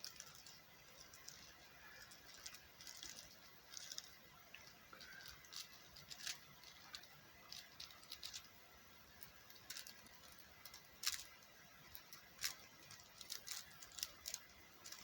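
Faint, irregular small clicks and ticks of rhinestone drills being picked up and pressed onto a sticky diamond-painting canvas.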